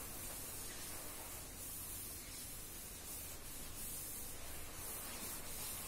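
Board duster rubbing across a chalk blackboard, a soft scratchy hiss in short repeated strokes as the board is wiped clean.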